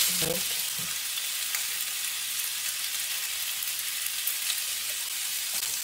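Thin-sliced pork belly sizzling as it fries: a steady hiss with scattered small crackles.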